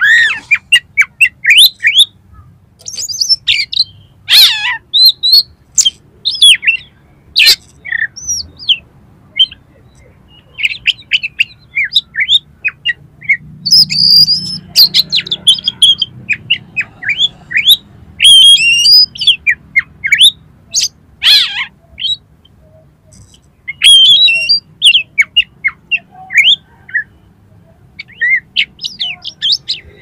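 Oriental magpie-robin (kacer) in full song: a fast, continuous string of short, varied, high whistles and chattering phrases, broken by brief pauses. It is the lively song that keepers call 'gacor', rich in mimicked phrases (isian).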